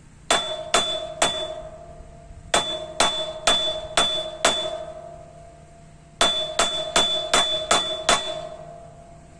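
Craftsman screwdriver struck hard against metal like a hammer: about fourteen clanging blows in three quick runs of three, five and six, each one leaving a clear metallic ring.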